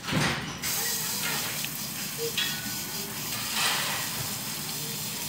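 Garden hose spray nozzle on its shower setting spraying water onto a dirty tennis ball, a steady hiss of spray.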